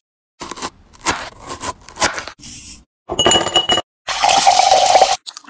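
A run of close-miked kitchen sounds: scrapes and clicks of a knife, then a ringing clink and ice clattering into a glass for about a second near the end.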